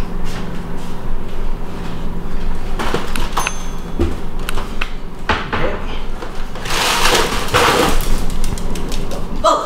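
Cereal box being handled and shaken out over a bowl: papery rustling and small clicks and knocks, with a louder rush of noise about seven seconds in lasting about a second.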